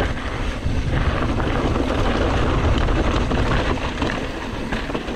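Mountain bike rolling fast down a dry, rocky dirt trail: a steady rumble of tyres on dirt and loose rock with small clicks and rattles from the bike, under wind buffeting the microphone.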